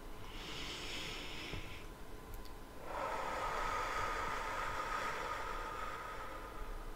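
A woman breathing deeply: an inhale about half a second in, then a long, slow exhale from about three seconds in until near the end.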